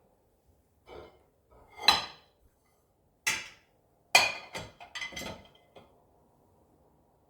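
Kitchenware being handled: a series of about eight knocks and clinks with a short ring, like dishes and utensils set down and knocked together, bunched most closely between about four and five seconds in.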